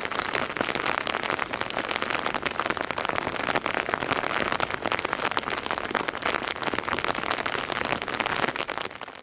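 Steady rain falling, a dense hiss of many small drop hits, dropping away just before the end.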